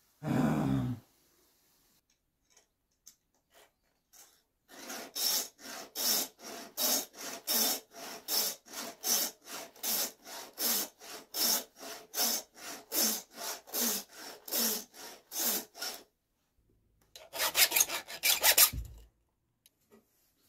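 A hand file sharpening a chainsaw chain: a steady run of rasping file strokes, about two a second. A short, louder burst of scraping comes near the end.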